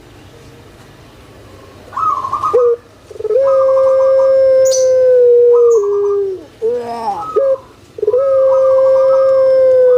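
Puter pelung dove singing: about two seconds in, a rough rolling note, then a long held coo of about three seconds that drops a step in pitch at its end, a few short coos, and a second long held coo starting near the end.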